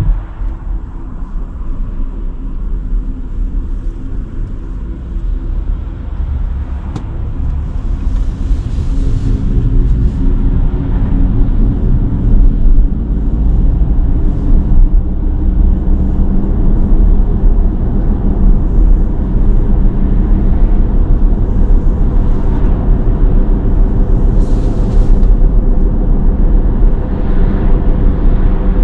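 Cadillac Lyriq electric SUV driving on a wet road: a steady low rumble of road and tyre noise, with a hum of several steady tones from the electric drive, growing louder about ten seconds in. A brief hiss of spray comes twice.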